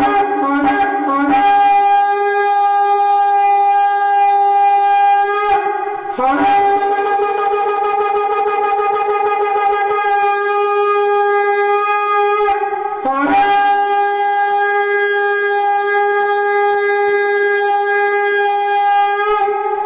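A shofar blown in long, steady blasts lasting several seconds each, with a few short broken notes at the start. The tone breaks off briefly twice and slides up into pitch at the start of each new blast.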